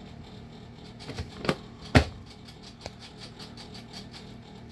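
Feeder mice scrabbling about in aspen shavings inside a clear plastic tub: light rustling and small ticks, with a few sharper taps between one and two seconds in, over a faint steady hum.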